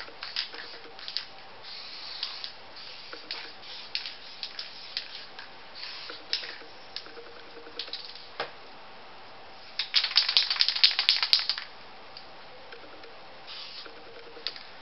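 Aerosol spray paint can: scattered short hisses and clicks, then about a second and a half of fast, loud rattling about ten seconds in, typical of the can being shaken to mix its paint.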